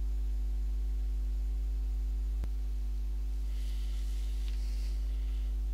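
Steady low electrical mains hum with its row of overtones. A single click comes about two and a half seconds in, and a faint hiss follows about a second later.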